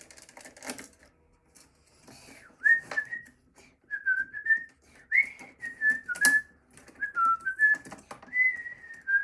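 A person whistling a wandering tune that starts about two and a half seconds in, with scattered clicks and taps from laptop parts and tools being handled.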